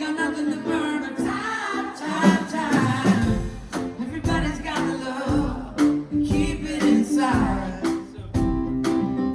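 Live band music with singing; a heavy low beat comes in about three seconds in and keeps a steady rhythm.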